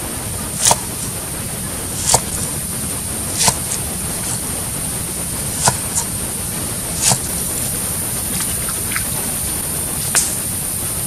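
A knife slicing fresh bamboo shoots into strips on a chopping board, with a sharp knock each time the blade hits the board. There are about seven strokes at uneven intervals, over a steady high hiss.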